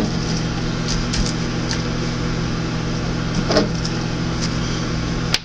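Steady electric hum of a running kitchen appliance, with a few faint light ticks, that cuts off sharply with a click near the end.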